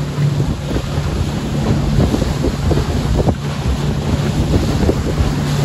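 Outboard motor of a small open fishing boat running steadily underway, a low hum under the rush of water from the wake, with wind buffeting the microphone.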